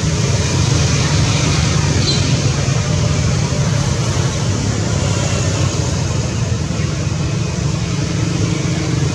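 Steady low rumble of outdoor background noise, even in level throughout.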